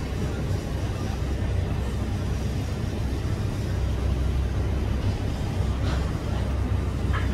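Steady low rumble of outdoor ambience, with a faint short high sound about six seconds in and another just before the end.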